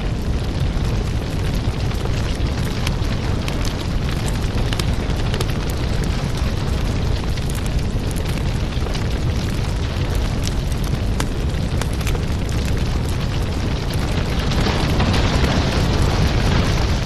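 Burning firewood: a steady low roar of flames with many small crackles and pops, getting a little louder near the end.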